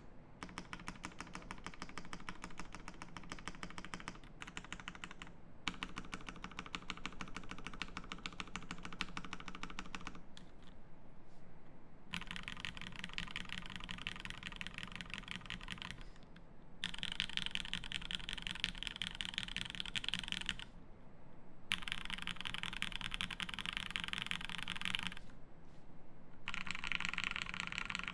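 Fast typing on a TGR Jane V2 CE mechanical keyboard with a carbon plate, lubed Cherry Hyperglide Black linear switches and GMK keycaps: rapid key clacks in runs of a few seconds, broken by short pauses.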